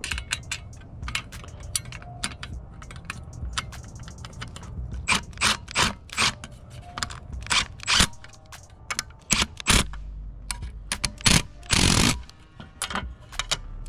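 Irregular clicks, taps and scrapes of an aftermarket 4x6 speaker and its bracket being worked into a car's factory dashboard speaker opening, with a longer scrape near the end.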